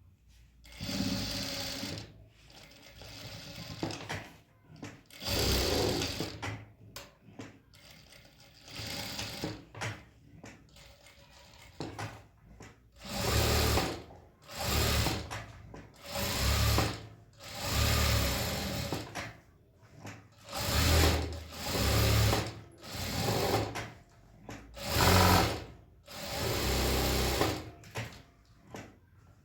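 Sewing machine running in short runs of about a second each, stopping and starting again over and over, more often in the second half.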